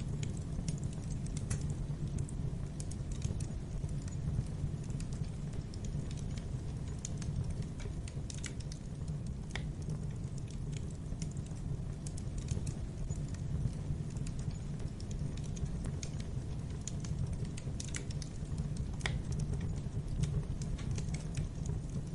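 Wood fire burning in a fireplace: a steady low rumble of flames with scattered crackles and pops, a couple of sharper pops standing out.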